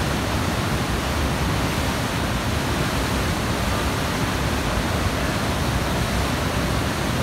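A loud, steady rushing noise that begins and ends abruptly.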